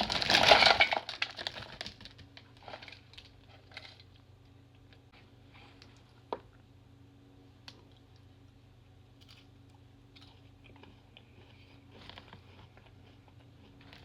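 Sparse faint crunches, crackles and clicks of chocolate-covered potato chips being handled and eaten close to the microphone, with one sharper snap about six seconds in. A loud burst of sound fades out in the first two seconds, and a steady low hum runs underneath.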